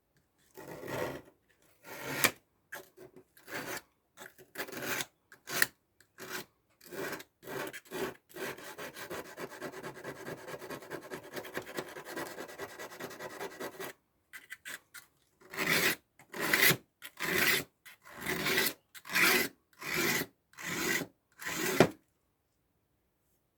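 Steel nail-file tool of a Victorinox Swiss Army knife being stroked across a sharpening stone to grind down and sharpen its edge. Separate rasping strokes come first, then several seconds of continuous back-and-forth rubbing, then evenly spaced strokes about one a second near the end.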